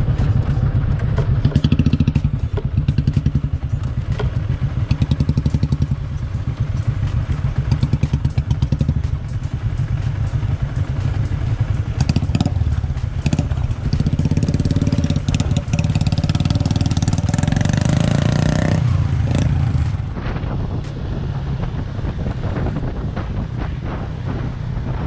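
Single-cylinder motorcycle engine running on a rough off-road track, its note rising and falling, with many short knocks and rattles from the bike over the rough ground.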